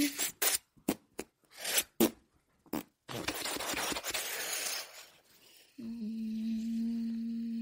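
Animation sound effects: a quick run of short, sharp noisy hits, then a hiss lasting about two seconds, and from about six seconds in a steady, even hum.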